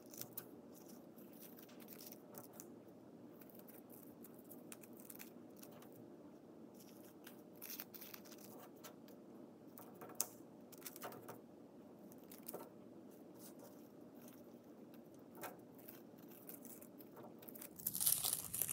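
Faint rustles and soft taps of tissue paper squares being picked up and pressed by hand onto sticky contact paper, over a steady low room hum. Near the end, louder crinkling of tissue paper being handled.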